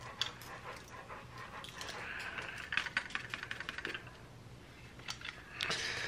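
Dry rice grains pattering and rattling as a DJI Mavic Pro drone is lifted and turned over a tub of uncooked rice, with a rapid run of small clicks about three seconds in.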